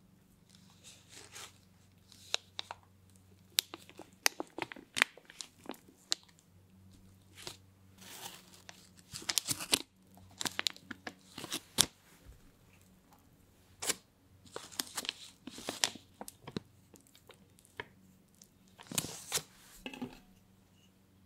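A plastic piping bag crinkling and rustling as thick chocolate batter is scooped into it with a spatula. The crackles come in irregular bursts, with the busiest stretches about halfway through and near the end.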